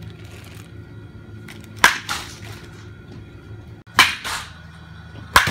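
Baseball bat hitting a ball three times, about a second and a half apart. Each sharp crack is followed by a softer knock a fraction of a second later.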